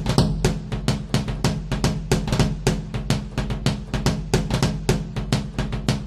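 Background music driven by a fast, busy drum beat over a steady bass.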